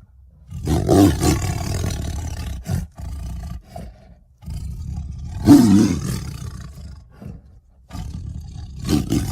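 Tiger roaring: three long, deep roars, the second, about five seconds in, the loudest, with a short lower growl between the first two. The third roar begins near the end.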